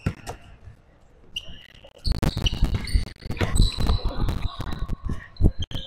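Basketball game on a hardwood gym floor: a ball bouncing and sneakers thudding and squeaking. The thumps are few at first, then come thick and fast from about two seconds in as players crowd the basket.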